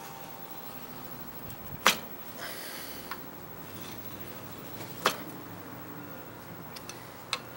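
Steel burnishing rod worked along the edge of a scraper made from an old Japanese saw blade, rolling a new hook: faint scraping strokes and three sharp clicks as the rod meets the steel edge, the loudest about two seconds in.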